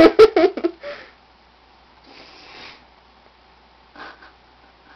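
A short burst of a person's voice at the start, then a faint breathy hiss about two seconds in and a few soft knocks near the end.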